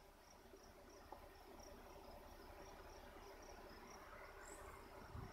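Faint crickets chirping in an even rhythm of about three chirps a second over a low, steady hum.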